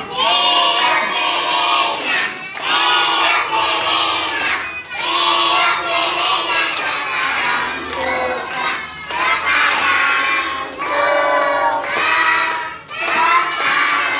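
A class of young children singing together loudly, in phrases of about two to three seconds with short breaks between them.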